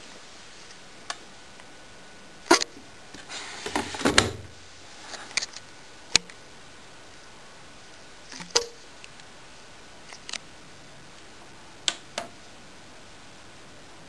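Scattered sharp clicks and light knocks over a steady hiss, from hands handling things around a washing machine's control panel: button presses and knocks on the plastic.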